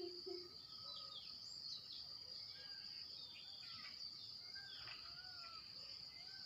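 A steady high-pitched insect drone, with assorted birds chirping and whistling over it in short calls throughout.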